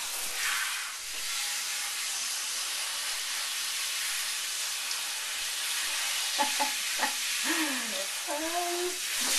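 Handheld shower sprayer running a steady hiss of water over a wet dog's coat in a bathtub, rinsing out the shampoo.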